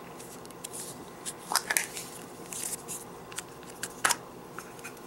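A plastic Play-Doh tub being handled and opened: scattered small clicks and scrapes of plastic, with louder knocks about one and a half and four seconds in.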